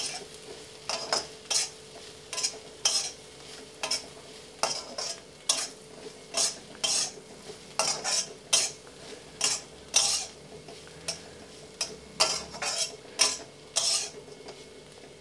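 A metal spatula scraping and stirring crisp dried Bombay duck fish, onions and spice powders around a wok, about two strokes a second with a short pause midway, as the masala roasts.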